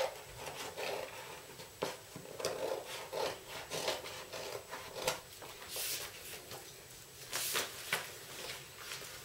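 Scissors cutting through a large sheet of paper pattern, an irregular string of snips and scraping strokes with the paper rubbing and crinkling. Two longer, louder strokes come about six and seven and a half seconds in.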